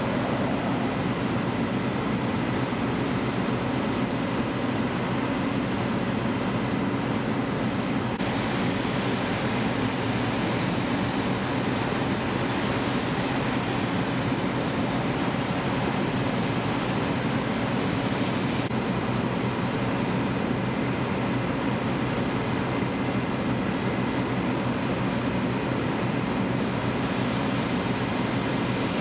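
Fire trucks' diesel engines running steadily, a constant low drone, under a broad rushing hiss that brightens about eight seconds in and drops back about ten seconds later.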